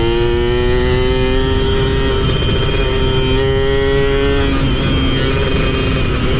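Yamaha F1ZR two-stroke motorcycle engine pulling under way. Its pitch climbs steadily, dips briefly about two seconds in, climbs again, then falls off about four and a half seconds in, over a steady low rush of noise.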